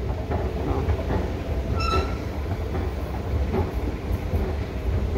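Airport escalator running, a steady low rumble with faint ticks from the moving steps. A brief high beep sounds about two seconds in.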